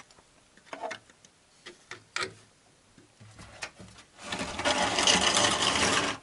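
A plastic oil-drain basin being moved over wooden boards: a few light knocks and bumps, then a loud scraping rattle for about two seconds as it is dragged, near the end.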